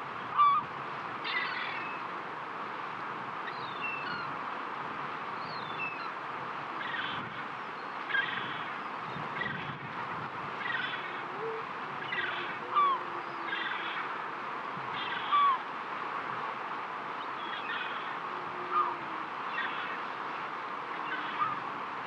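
Steady wash of the sea against a rocky shore, with short bird calls repeated over it every second or two, the loudest a handful of sharp calls spread through.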